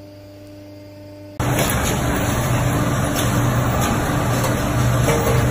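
Hydraulic system of a semi-automatic injection molding machine working under load during a test injection, purging molten plastic from the nozzle. A faint hum, then about one and a half seconds in a sudden loud, steady hiss with a low hum under it.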